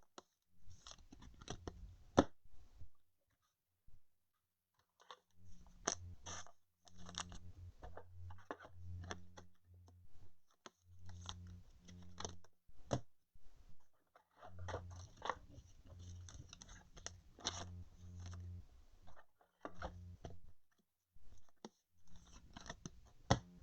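Baseball cards being slid into soft plastic sleeves: faint, irregular crinkling and rustling of thin plastic with light clicks of card edges, in bursts with short pauses.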